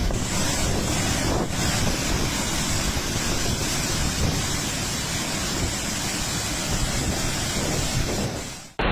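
Strong storm wind blowing hard across the microphone, a dense steady rushing noise that cuts off abruptly near the end.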